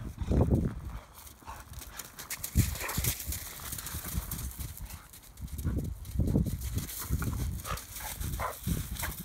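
Two young dogs play-fighting: bursts of low, rough dog growling and grunting with scuffling, loudest about half a second in, near three seconds and around six seconds, with a few short higher sounds near the end.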